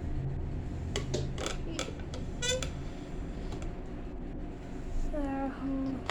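Hard plastic toy parts clicking and knocking a few times as a dinosaur-egg toy is handled and fitted together, then a short squeak and, near the end, a brief hummed note from the child.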